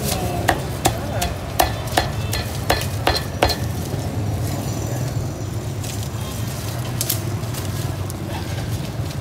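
Cleaver chopping roast pork on a chopping block: a quick run of sharp chops in the first three and a half seconds, then only a few, over a steady low rumble.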